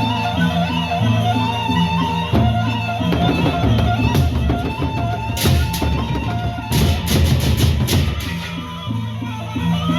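Gendang beleq ensemble playing: big double-headed drums over a steady beat, with gongs and a melodic line. About three seconds in, the drums break into a dense, busy variation with a run of cymbal clashes, then settle back into the steady beat near the end.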